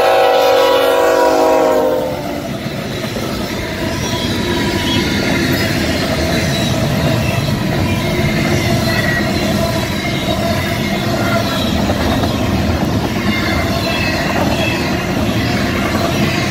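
Freight train passing close by: the locomotive's multi-note air horn sounds loudly and stops about two seconds in. It is followed by the steady rumble and wheel clatter of the container cars rolling past.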